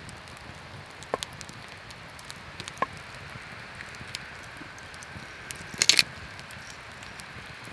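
Wood fire crackling with a steady hiss and scattered small pops, and a short cluster of louder sharp snaps about six seconds in.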